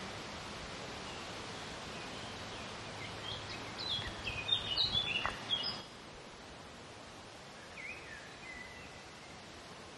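Woodland ambience: a steady background hiss, with a bird singing a quick run of high chirps and short pitch glides about halfway through, and a shorter bird call near the end. The background hiss drops a little after about six seconds.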